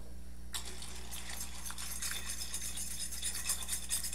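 Elbow macaroni being stirred with a spoon in a stainless saucepan of boiling water: a crackling, bubbling hiss with light clicks and scrapes of the spoon against the pot, starting about half a second in.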